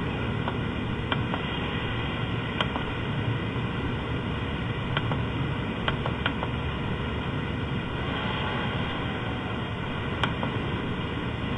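Steady hiss and faint hum of a webinar's audio line while nobody speaks, with a few faint, scattered clicks.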